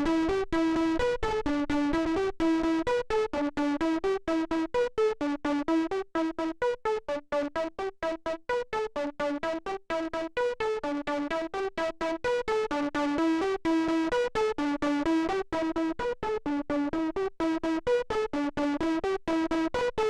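Lead synthesizer played through a Gamechanger Audio Plasma Pedal, the xenon-tube high-voltage overdrive, playing a repeating melodic sequence of short, separated notes, about four a second.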